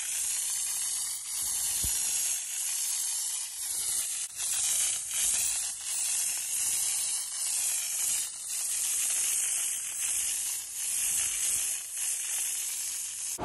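Compressed-air spray gun hissing steadily as it sprays a black textured coating, with a few brief dips in the hiss.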